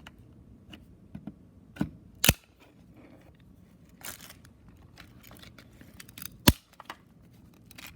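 Plastic shell of a Sony UX Pro 60 cassette being pried apart and handled: scattered sharp plastic clicks and snaps, two louder ones about two seconds in and about six and a half seconds in, with a brief scrape around four seconds in.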